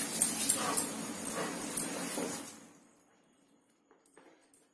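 Dried fenugreek leaves (kasuri methi) being crushed and rubbed between the palms: a dry, crackling rustle full of small clicks that stops about two and a half seconds in. Near the end, a few faint taps of a wooden spatula in the pan.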